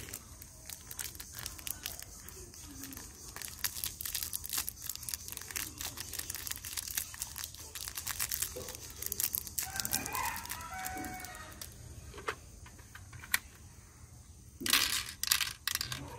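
A small plastic packet crinkling and loose plastic BB pellets clicking in the hand while a toy revolver is loaded. A chicken clucks briefly about ten seconds in, and a louder rattle of the toy gun comes near the end.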